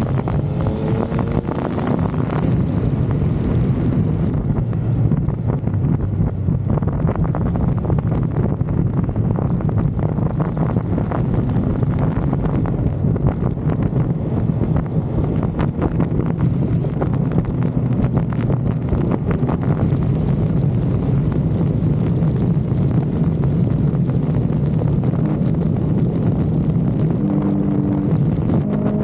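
Motorcycle engine running steadily at road speed under heavy wind noise on the microphone. The engine note shifts briefly near the end.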